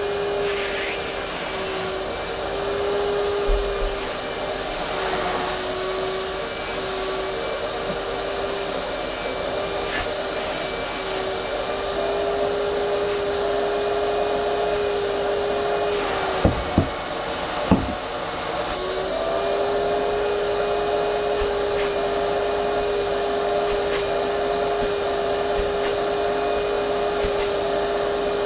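Vacuum cleaner running with a steady whine over a rushing hiss. About two-thirds through, its pitch dips for a couple of seconds, with a few sharp knocks.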